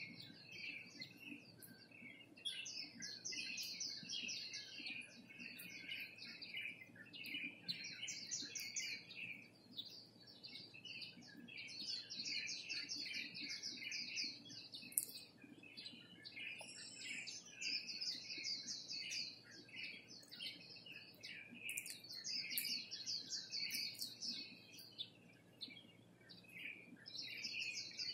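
Many small birds chirping and trilling together in a dense, continuous chorus that swells and ebbs in waves, over a faint low background rumble.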